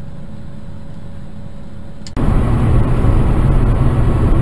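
Steady motor-vehicle engine and road noise. About two seconds in it switches abruptly to a much louder, heavier rumble that runs on steadily.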